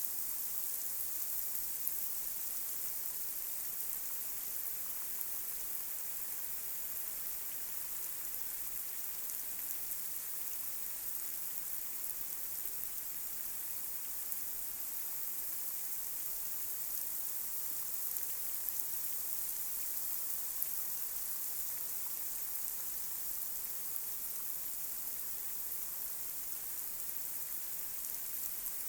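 Light rain falling on a street: a steady hiss of many drops with scattered faint taps.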